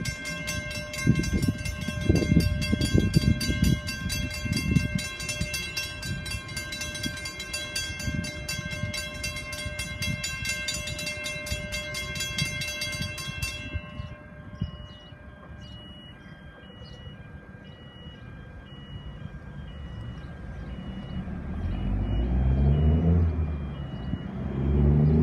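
Electronic level crossing bells ringing rapidly while the boom gates lower, cutting off about 14 seconds in. A regular high beeping from the pedestrian swing-gate alarms follows, and a low rumble of an approaching vehicle swells near the end.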